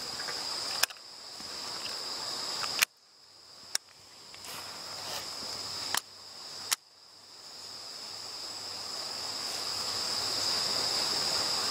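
A chorus of insects trills steadily and high-pitched. It is broken several times by sharp clicks, after which the sound drops out and fades back in.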